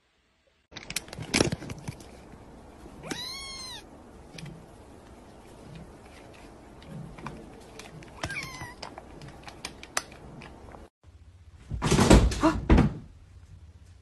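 A kitten meowing twice, one rising-and-falling meow about three seconds in and a shorter falling one about eight seconds in, over the crinkle of the foil snack bag it sits in. Near the end comes a loud noisy burst about a second long.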